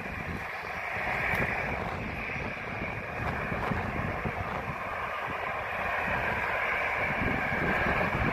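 Jet airliner engines heard from across the airfield, a steady rush with a higher whine, growing louder near the end, with wind buffeting the microphone.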